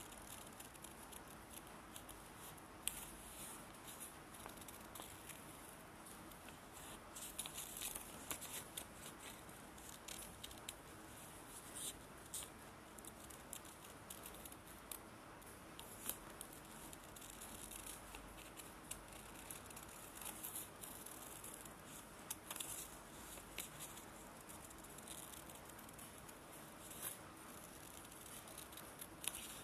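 Small scissors cutting through folded origami paper: faint, irregular snips with light rustling of the paper.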